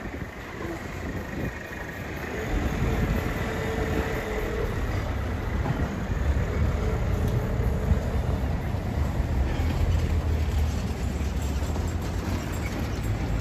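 Steady low rumble of a vehicle in motion, growing louder about two seconds in.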